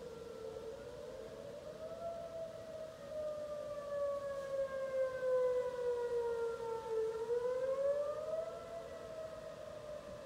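Whelen electronic outdoor warning siren sounding its wail tone. The pitch rises, sinks slowly for several seconds, then rises again about two-thirds of the way through. It grows louder in the middle of the stretch and fades again.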